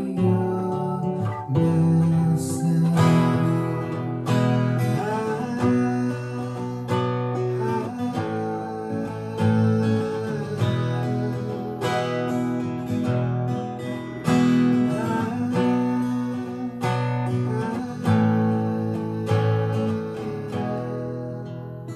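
Acoustic guitar strummed in chords, each stroke ringing on into the next.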